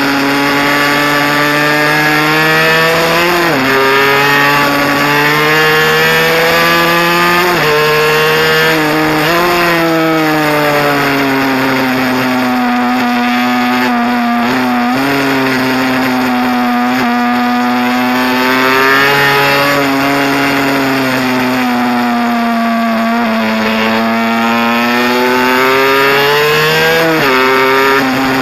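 Small two-stroke mini bike engine at race pace, a high buzzing note that climbs under throttle and drops sharply at each shift or lift for a corner, about five times, with long sweeping rises and falls through the middle. Wind rush over the onboard microphone runs underneath.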